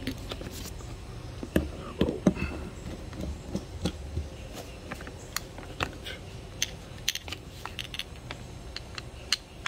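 Scattered small clicks and taps of plastic and metal carburetor parts being handled as the float and its hinge pin are fitted into the carburetor body, over a low steady hum.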